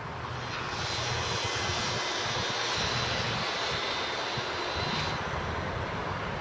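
An engine passing outdoors: a rushing noise with a thin high whine that comes up about half a second in and falls away about five seconds in, over a steady low hum.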